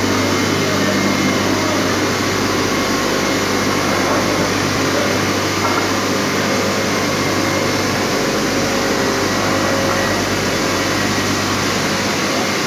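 Marble shot blasting machine running: a steady, loud mechanical drone with a low hum, as its motors and fans run and marble slabs are fed through on the roller conveyor.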